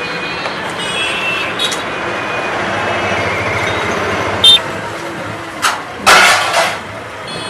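Steady hiss and clamour of a street-food stall with traffic noise behind it. A short ringing metal clink comes about four and a half seconds in, and a louder metal clatter, a spatula striking an iron kadai, comes about six seconds in.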